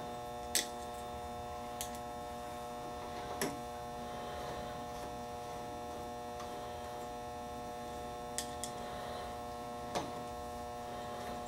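Steady electrical hum with about six short, sharp metal clicks as an Allen key turns in the set screws of a Teac A-3340 reel-to-reel deck's reel table. The loudest click comes about half a second in.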